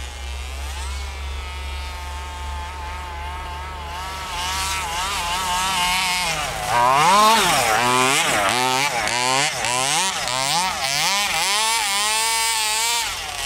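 Small 27cc two-stroke gas engine of an RC monster truck, running through a tuned pipe, revving up and down over and over as it drives through deep snow. It is fainter at first and gets louder about seven seconds in as the truck comes closer.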